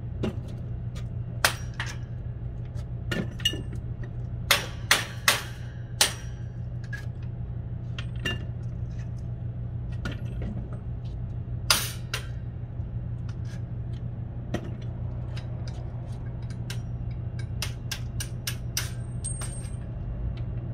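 Irregular metal clinks and sharp knocks from shopping carts being worked on, with a run of four louder knocks about five seconds in and another strong one near the middle. Under them runs a steady low hum.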